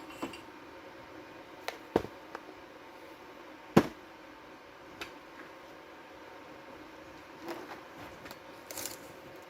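Metal parts and tools being handled during a repair: scattered knocks and clicks, the two loudest about two and four seconds in, over a steady low hum.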